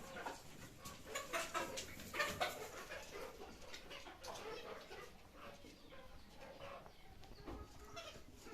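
Chickens clucking, many short irregular calls that are busiest in the first few seconds and then thin out.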